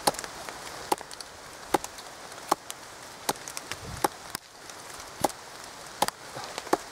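Schrade SCHF42D knife tip drilling into hard wood: the blade point is twisted and levered into a log, giving sharp cracks and clicks of wood about once a second.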